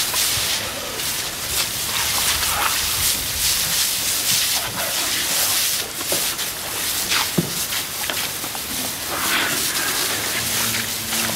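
Water jet from a hose spraying onto a young elephant calf lying in mud: a steady hiss of spray, with a few short sharp splashes or knocks.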